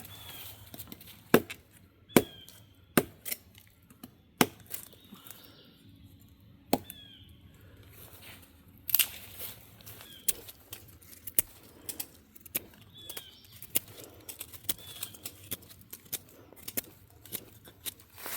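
A series of irregular, sharp cracks and knocks, coming more often in the second half, with a few short chirps, most likely birds, in the background.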